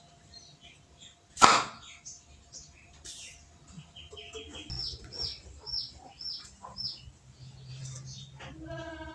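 A single sharp pop about a second and a half in, typical of a homemade bamboo toy gun firing. Small birds then chirp in a run of short falling notes, and a goat bleats near the end.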